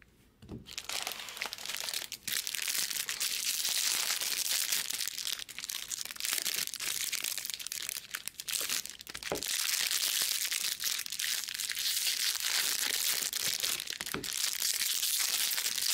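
Foil trading-card pack wrappers crinkling and crackling as packs are handled and ripped open, starting about half a second in.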